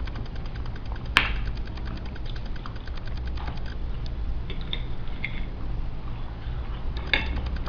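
Scattered small clicks and taps from a baby feeding himself, with one sharp click about a second in, over a steady low hum.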